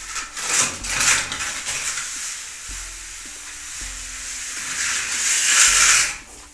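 Long wooden straightedge scraped across freshly applied wet cement plaster on a brick wall, levelling it off: a coarse scraping rasp, loudest about a second in and again near the end, stopping about six seconds in.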